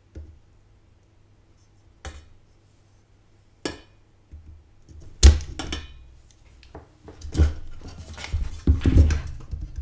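A spring-loaded solder sucker (desoldering pump) fires at a soldered joint about five seconds in with one sharp snap, the loudest sound, pulling molten solder off the joint to free a cable from the board. There are a couple of lighter clicks before it, and a run of knocks and handling noise near the end as the power supply is picked up and moved.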